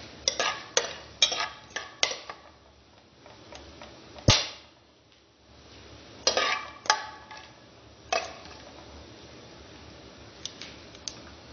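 Metal spoon stirring whole spices around an aluminium pot, clinking and scraping against its base and sides in short bursts, with the loudest knock about four seconds in and a few faint ticks near the end.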